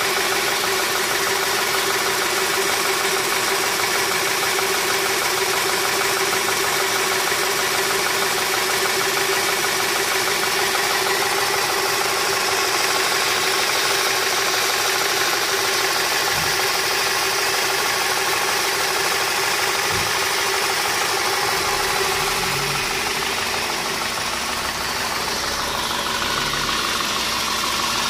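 Volkswagen Tiguan's 2.0-litre petrol four-cylinder engine idling steadily, heard close up beneath the engine near the accessory belt and pulleys.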